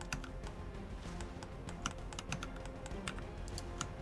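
Quick, irregular key presses on a computer keyboard, over quiet background music.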